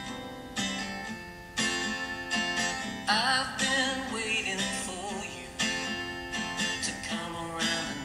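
Background music led by strummed acoustic guitar, with a bending melodic line over it partway through.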